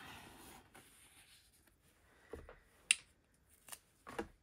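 Card stock sliding across a craft mat, then a few light taps and one sharp click from clear acrylic stamping tools being picked up and set down.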